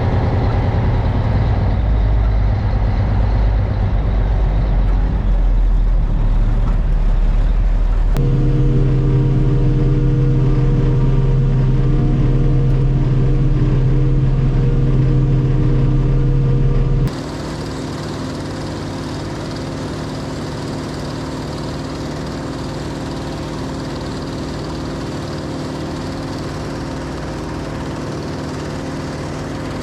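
Farm vehicle engine running steadily while driving down the road. About eight seconds in, a strong low drone comes in. About seventeen seconds in, the sound drops suddenly to a quieter, steady engine hum.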